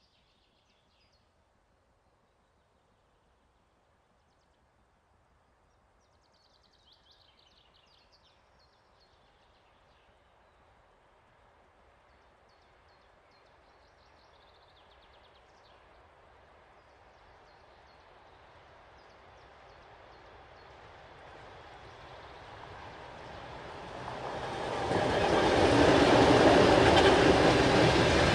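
A train of many wagons approaching, its rumble growing steadily from near silence and becoming loud about three-quarters of the way through. Birds chirp faintly in the quiet first part.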